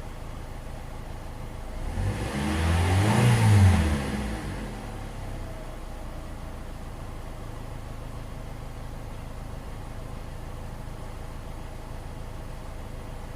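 2005 Chevy Cobalt's 2.2 L four-cylinder engine idling, with one throttle blip about two seconds in that rises and falls back to a steady idle.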